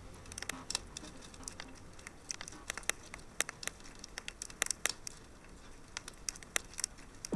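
Fireplace fire crackling, with irregular sharp pops and snaps at an uneven pace.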